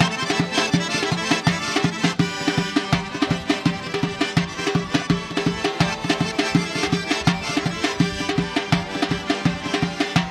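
Lively Karachay folk dance music: melody instruments over a quick, steady drum beat.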